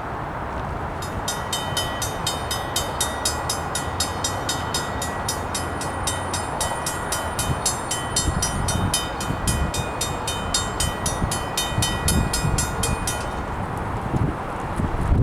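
A train's steady rumble, with a bell ringing fast and evenly, about five strokes a second, through most of it. The bell stops shortly before the end, while the low rumble grows louder.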